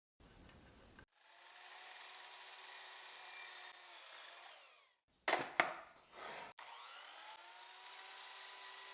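Power saw cutting pine boards: a faint steady motor whine, broken off about halfway by a short louder burst of cutting noise. The whine then starts again and climbs in pitch as the saw spins up.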